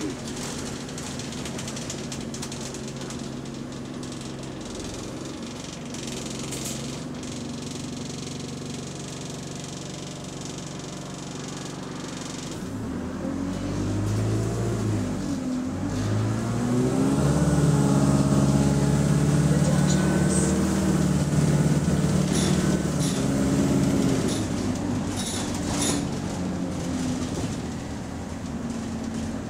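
Double-decker bus engine heard from the passenger saloon, running steadily at first. About halfway through it pulls hard under acceleration, its note rising and stepping through a gear change, then eases off near the end.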